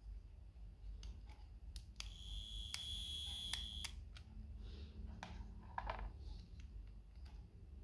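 Light plastic clicks and taps as a small electric baby nail trimmer is handled, its cap is pulled off and its emery pads are picked out of the plastic case, with a short cluster of clicks near the end. A steady high-pitched tone sounds for about two seconds, starting about two seconds in.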